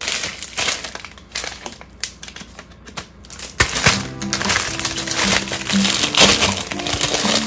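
Plastic food packaging crinkling and rustling as it is handled, ending with a plastic bread bag being pulled open. Background music comes in about three and a half seconds in.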